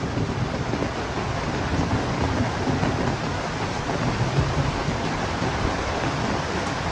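Heavy rain and wind in a storm: a steady rushing noise with a low rumble underneath.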